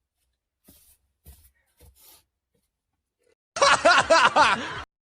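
A short burst of laughter, a few quick "ha"-like pulses lasting about a second, starting past the middle.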